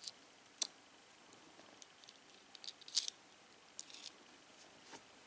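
Several faint, sharp small clicks from a metal sewing-machine bobbin case and its class 15 bobbin handled in the fingers, as thread is pulled into the slot under the tension spring and the case latch is lifted. The loudest click comes about three seconds in.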